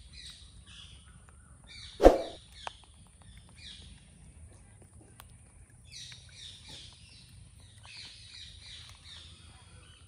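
Birds chirping outdoors in repeated quick clusters of short, high, falling notes, with one sharp thump about two seconds in.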